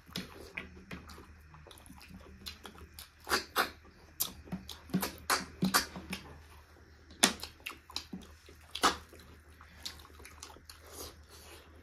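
Close-up eating sounds: wet sucking and slurping as freshwater snails in curry are sucked from their shells, with sharp irregular clicks, several loud ones.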